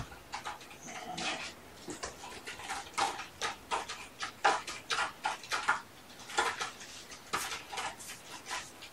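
Kittens mewing, mixed with a run of short, irregular clicks and rustles.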